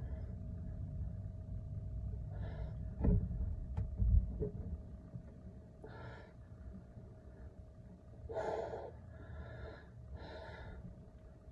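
A man breathing hard from the strain of dumbbell overhead presses, with several short, forceful exhalations. Two dull thumps, the loudest sounds, come about three and four seconds in.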